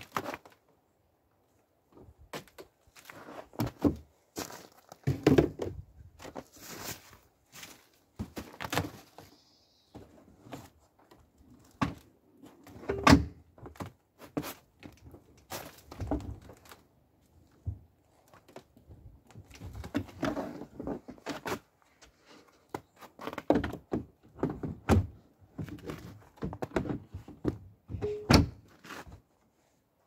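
Irregular thunks and knocks with rustling between them as things are shifted about and set down in a hatchback car's boot, the loudest knock about thirteen seconds in.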